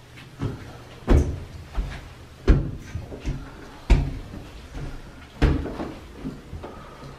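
Slow, heavy footsteps: four loud thuds about a second and a half apart, with softer knocks between them.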